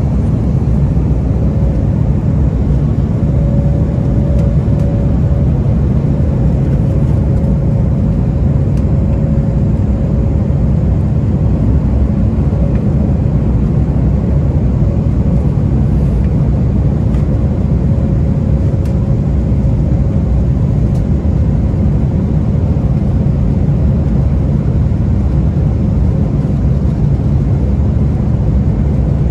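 Cabin noise aboard an Embraer E195-E2 jet on approach: a steady low rumble of airflow and its Pratt & Whitney PW1900G geared turbofan engines, with a faint steady hum above it.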